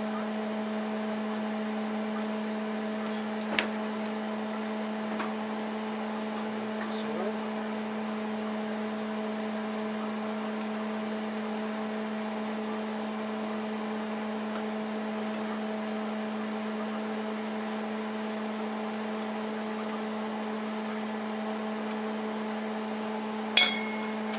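A steady machine hum with a few light clicks, and near the end a sharp clink of steel that rings briefly.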